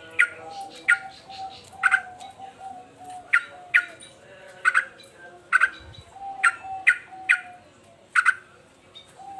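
Male yellow-vented bulbul giving short, sharp, loud call notes, one or two a second and irregularly spaced, as an agitated bird does.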